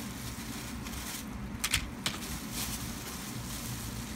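Plastic blister packs of craft charms rustling and clacking as they are handled and dropped onto a pile, with two sharp clicks about two seconds in.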